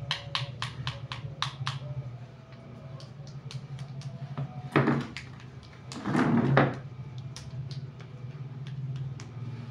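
Spoon clicking and scraping in a small plastic bowl of banana, quick taps of about three a second at first, then sparser, with a louder scrape about five seconds in and a longer one around six seconds. A steady low hum runs underneath.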